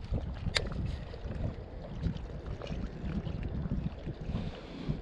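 Wind buffeting the microphone as an uneven low rumble, over faint water noise around a kayak on choppy water, with one sharp click about half a second in.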